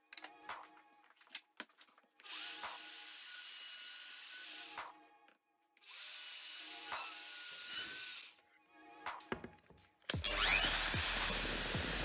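Plunge router motor running in two short spells of about three seconds each, spinning up and winding down each time. Near the end it starts again, louder and rougher, as the bit cuts into the walnut-and-epoxy slab. Soft background music plays underneath.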